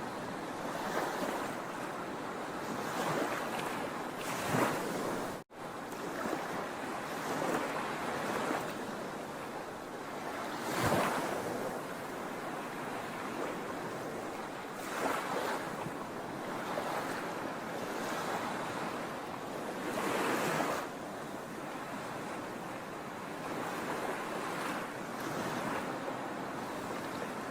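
Sea waves washing onto a shore: a continuous rush of surf that swells and ebbs, with louder wave surges now and then, the strongest about eleven and twenty seconds in. The sound cuts out for an instant about five seconds in.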